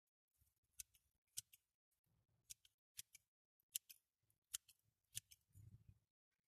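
Garden secateurs snipping through Siberian iris leaves: a series of short, sharp snips, roughly one or two a second, as stray leaves are trimmed from the braided foliage.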